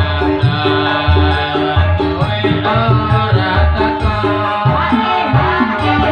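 Campursari band playing an instrumental passage between sung verses: a steady drum and bass rhythm under a melody line that bends in pitch.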